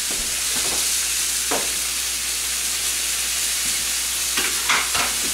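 Venison roast searing in a hot pan: a steady sizzle, with a few faint knocks.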